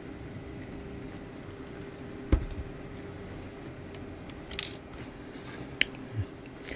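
Small metal laptop screws clinking as they are handled on a wooden tabletop: a few separate sharp clicks, with a brief metallic jingle about four and a half seconds in.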